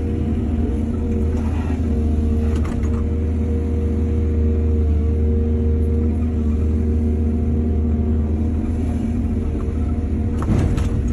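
Excavator's diesel engine running steadily, with a few brief metallic clatters about two seconds in and again near the end.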